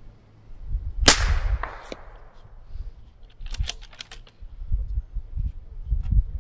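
A scoped precision rifle fires a single shot about a second in, its report trailing off in a long echo. Around three and a half seconds in comes a quick run of sharp metallic clicks as the bolt is worked.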